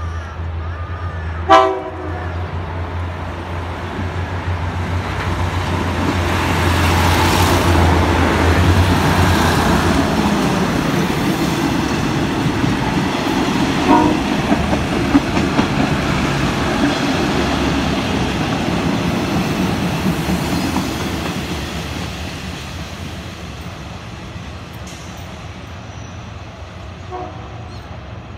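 Diesel railcar train sounding a short horn blast about a second and a half in, then passing close by with engine hum and wheel clatter on the rails, the noise swelling, holding and fading away. Shorter horn toots come again about halfway through and faintly near the end.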